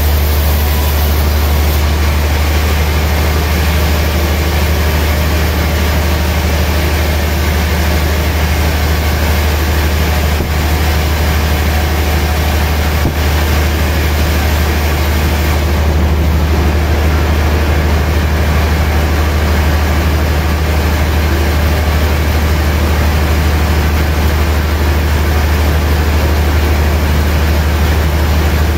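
Large sawmill band saw running steadily with a strong low hum, its blade sawing through a gayam log.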